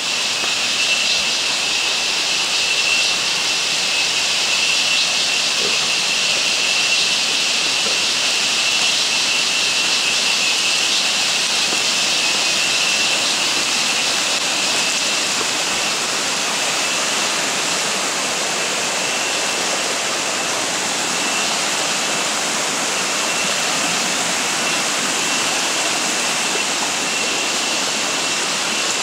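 Heavy monsoon rain falling on dense forest foliage, with rainwater running down the trail: a loud, steady hiss, with a thin steady high tone over it.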